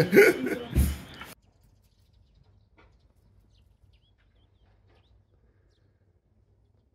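A voice that cuts off abruptly just over a second in, with a dull thump shortly before the cut; then near silence.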